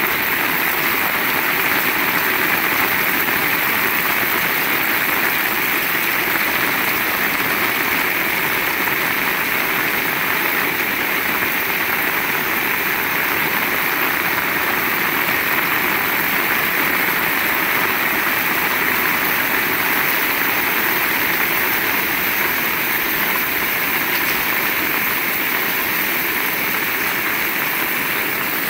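Heavy rain falling, a steady dense hiss that neither builds nor fades.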